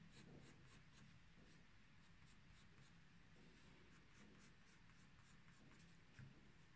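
Faint graphite pencil strokes on rough cotton watercolour paper: a run of short, light strokes as lines are drawn.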